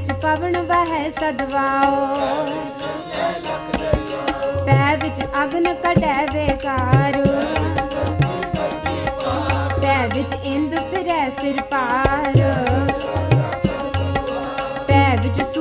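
Sikh kirtan: women singing a devotional hymn over harmoniums, which hold a steady reed drone, and tabla. A fast, even ticking beat runs through it all.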